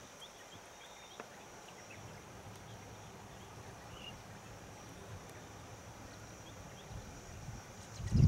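Outdoor ambience: a steady high-pitched drone and a few faint chirps over a low rumble. Near the end come a couple of loud low thuds.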